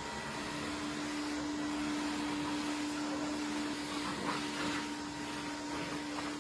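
Steady drone of an electric motor-driven cleaning machine: a constant airy hiss over one unchanging low hum.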